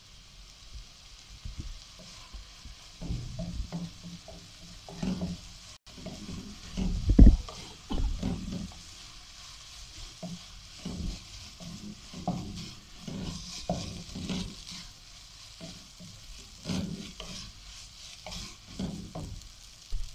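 Spaghetti and vegetables sizzling in a wok while a wooden spatula stirs and tosses them: irregular scrapes and soft knocks against the pan over a steady frying hiss, with one louder knock about seven seconds in.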